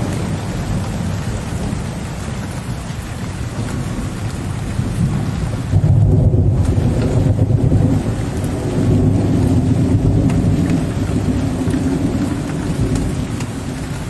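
Steady rain with low rolling thunder. The rumble swells suddenly about six seconds in, rolls on for several seconds and then eases off under the rain.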